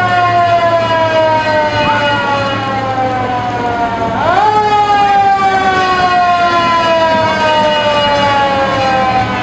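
Fire engine siren winding up quickly to a high wail and then slowly winding down in pitch, twice: once as the sound opens and again about four seconds in.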